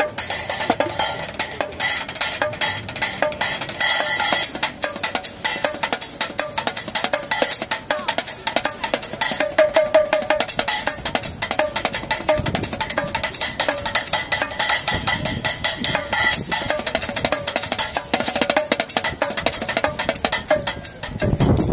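Busker drumming fast with two sticks on a small makeshift kit of little drums, a dense, steady stream of sharp hits with a ringing drum tone in places.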